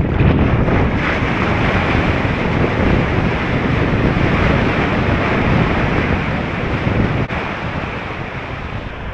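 Ocean surf breaking and whitewater rushing, heard close up at water level as a bodyboard rides a wave in, with wind on the microphone. Loud and steady, easing a little after about seven seconds.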